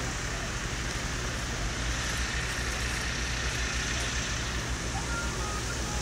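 An engine running steadily at an even low hum, with no revving or cutting.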